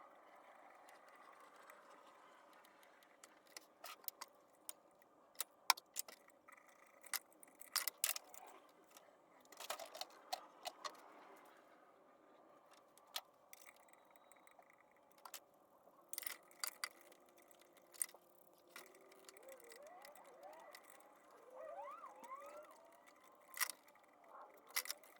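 Scattered sharp metallic clicks and clinks of hand tools and bolts while engine accessories are being taken off, over a faint steady hum. Near the end come a few short gliding whistle-like tones.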